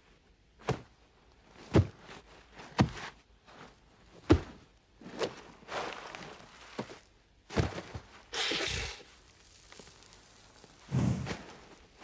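A lioness wrestling a gemsbok (oryx) in loose sand: a series of dull thuds and scuffles about a second apart, with a couple of longer rushing, breathy noises in the second half.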